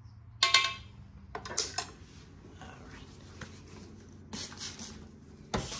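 Kitchen utensils and glass canning jars clinking and knocking while jars are filled with hot jelly, the sharpest clink about half a second in. Near the end a kitchen sink tap comes on and water starts running steadily.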